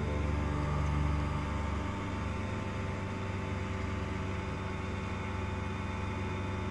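Challenger I ultralight's two-stroke engine running steadily in cruise flight, heard from the open cockpit.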